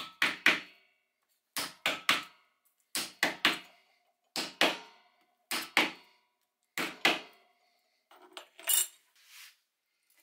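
A meat hammer pounds small pieces of roe deer meat to crush the fibres. The blows come in quick pairs and threes, about one group every second and a half. Near the end come a few lighter knocks and a brief clink.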